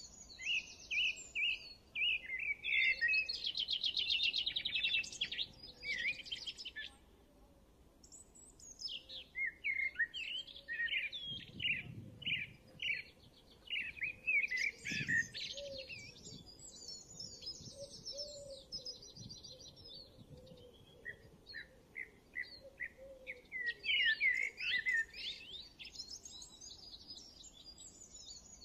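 Birds chirping and singing, with quick trills and runs of short repeated chirps coming in bursts and a brief lull about a quarter of the way in.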